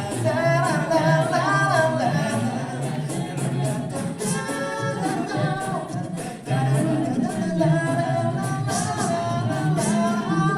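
A cappella vocal group singing in close harmony over a sung bass line, with a regular sharp beat running under the voices. The sound briefly thins out about six and a half seconds in before the full group comes back in.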